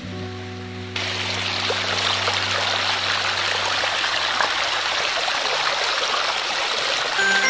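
Water rushing down a shallow stone-and-concrete channel and splashing into a pool. It is a steady rush that starts abruptly about a second in.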